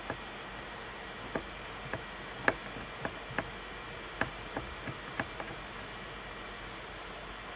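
About a dozen sharp, irregular clicks and taps of a small screwdriver and screws being handled while a Mac mini is taken apart, the loudest about two and a half seconds in, over a steady faint hiss.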